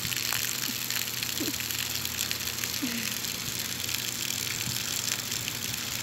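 A thin stream of water pouring from a spout and splashing steadily into a pond. A few short, low, downward-sliding calls sound over it.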